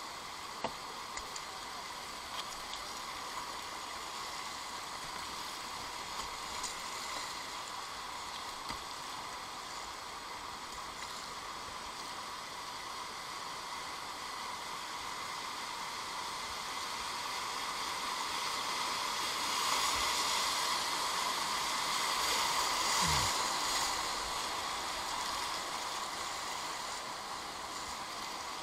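Whitewater rapid rushing steadily, heard from a kayak in the current. It swells louder for a few seconds about two-thirds of the way through, with a few faint knocks.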